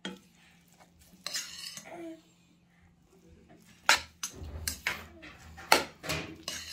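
A metal spoon mixing bibimbap in a metal bowl: irregular scraping and sharp clinks of the spoon against the bowl, loudest about four seconds in and again near the end.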